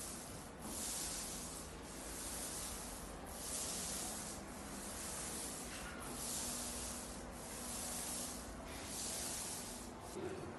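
Paint roller rolling paint across a ceiling in back-and-forth strokes: a rubbing hiss that swells and fades with each pass, about eight passes.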